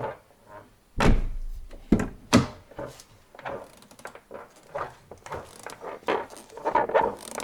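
A car door shutting with a heavy thud about a second in, followed by two sharper knocks and then a run of softer clicks and handling noises.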